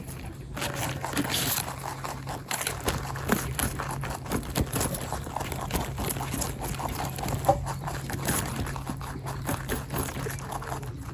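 Domestic rabbit chewing a raw carrot close up: a rapid, irregular run of small crunching clicks.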